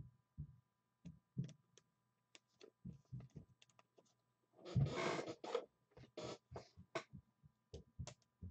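Hands handling trading cards and their packaging: a run of light clicks and taps, with a louder rustle about five seconds in.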